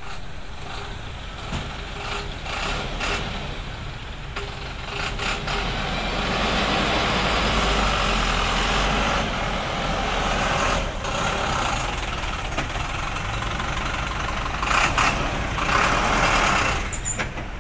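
Diesel engines of a Doosan DX55 excavator and a Thaco dump truck running steadily, getting louder in the middle, with scattered knocks and a louder stretch of clatter near the end.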